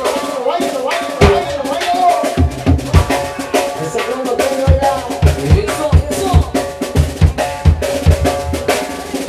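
Live norteño band playing dance music, with a drum kit's kick and snare keeping a steady beat under sustained melody instruments.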